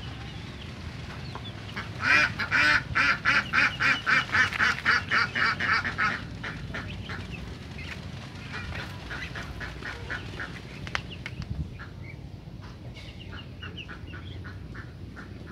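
Domestic ducks quacking. A loud run of rapid quacks, about four a second, starts about two seconds in and lasts some four seconds, followed by fainter, scattered quacks and a short quick series near the end.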